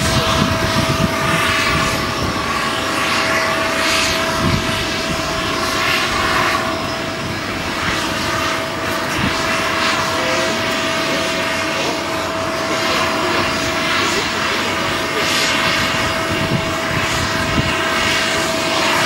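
Turbofan engines of a Flybe regional jet at takeoff power on a wet runway: a steady rushing noise with a held whine, swept by repeated phasing whooshes as the jet rolls.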